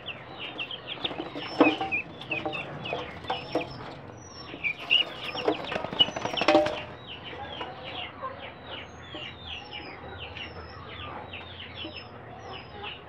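Young guinea fowl keets, a chick and a turkey poult peeping nonstop, a quick overlapping run of short falling peeps. The peeping is louder in the first half, where a few sharp knocks stand out.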